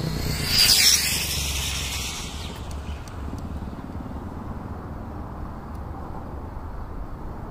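Electric RC touring car (Kyosho Fazer Mk2) passing at speed on asphalt: a high-pitched motor and drivetrain whine that peaks and drops in pitch just under a second in, then fades into tyre hiss and background noise.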